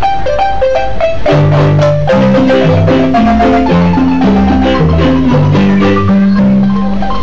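An ensemble of Zimbabwe-style wooden marimbas with tube resonators playing a lively interlocking piece: quick mallet notes in the higher marimbas over a low bass marimba line that grows strong about a second in.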